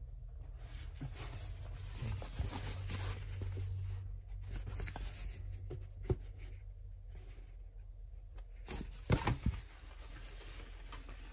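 Woven fabric being handled and rustled on a sewing-machine table, with a sharp tap about six seconds in and a few knocks around nine seconds. A low steady hum runs underneath.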